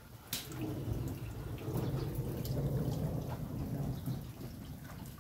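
Floodwater flowing fast: a steady low rushing, with a sharp knock about a third of a second in.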